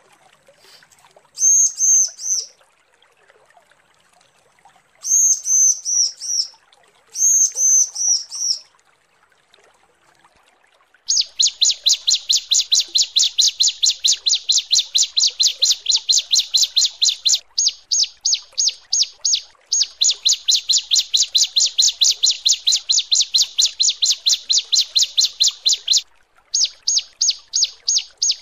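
Female ciblek (bar-winged prinia) calling to attract males. Three short phrases of slurred high notes come in the first nine seconds, then from about eleven seconds a long, fast run of sharp repeated notes, about eight a second, broken by a few brief pauses.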